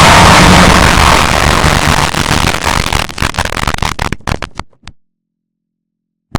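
Harshly distorted, clipped edit of an AT&T sound effect: a dense wall of loud noise that breaks up into choppy stutters and cuts off about five seconds in, then one short loud burst at the very end.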